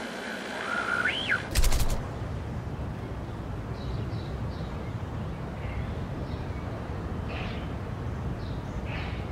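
A high whistle that glides up and down ends about a second and a half in with a brief rapid rattle of clicks. After it comes a steady ambience with a low rumble and faint, short high chirps.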